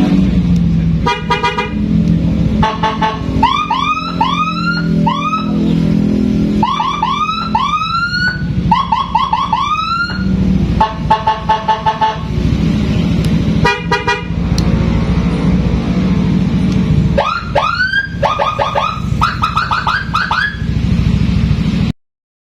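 Aftermarket siren on a motor scooter cycling through its tones: runs of short rising whoops alternating with rapid pulsed horn-like blasts, over a steady low hum. It cuts off suddenly near the end.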